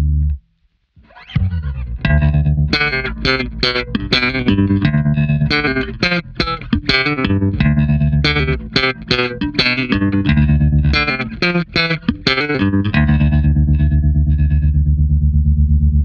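Electric bass guitar played fingerstyle through a Boss TR-2 tremolo pedal. After a short gap it plays a run of plucked notes, then lets a low note ring near the end while its volume pulses quickly and evenly.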